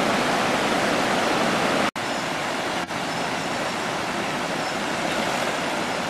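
Steady rushing of a fast-flowing, muddy river in spate, an even water noise that drops out for an instant twice, about two and three seconds in.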